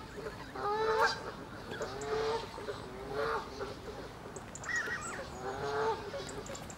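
Canada geese honking: a string of short, nasal honks, about one a second.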